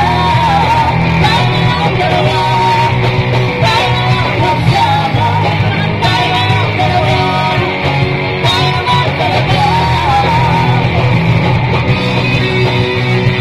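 Live rock band playing loud, with amplified electric guitar.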